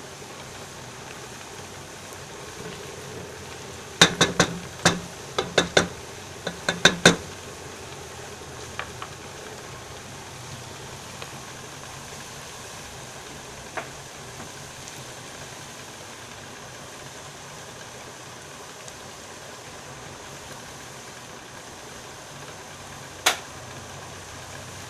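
Sliced onions frying in hot oil in a deep pot, a steady sizzling hiss. About four seconds in comes a quick run of sharp knocks, about nine in three seconds, with a few single knocks later and one near the end.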